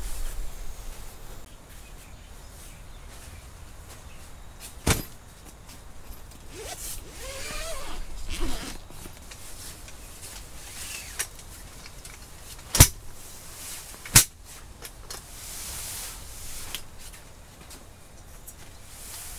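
Tent fabric being handled and shuffled inside a tent, with three sharp clicks: one about a quarter of the way in and two close together past the middle. A brief wavering pitched sound comes just before the halfway point.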